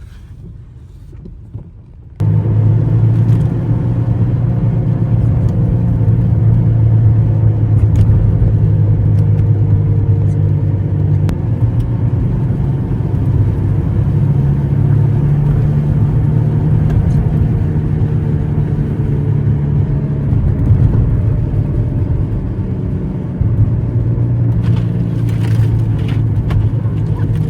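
Steady low rumble of a car on the move, heard from inside the cabin, starting abruptly about two seconds in after a quieter stretch.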